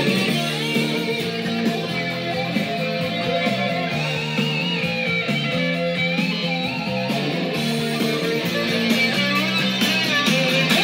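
A vinyl record playing music on a Teac SL-A100 stereo record player, heard through its built-in speakers.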